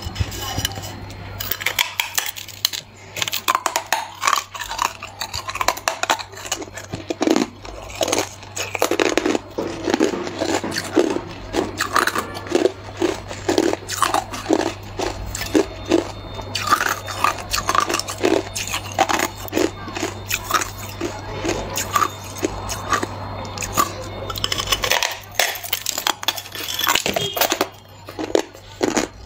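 Hard ice being bitten and chewed: loud, irregular crunching bites in quick succession, with a short lull near the end. A steady low hum runs underneath.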